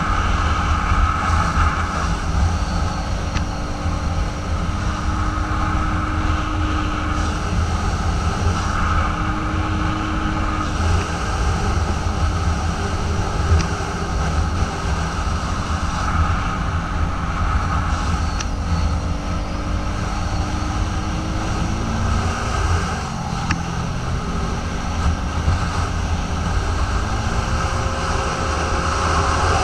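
Polaris Sportsman 550 ATV's single-cylinder engine running steadily at riding speed, mixed with wind rumble on the microphone. The engine note dips about three-quarters of the way through, then steadies again.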